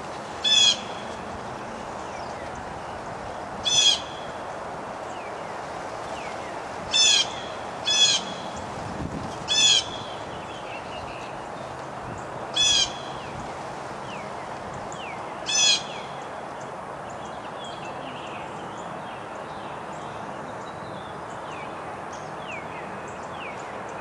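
A bird calling: seven short, loud, high-pitched calls a second to three seconds apart, over a steady background hiss. Faint chirps of small birds follow near the end.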